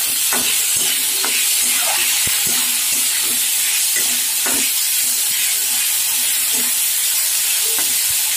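Soaked moong dal sizzling in hot mustard oil in a steel kadai, with a spatula stirring it and scraping the pan a few times a second.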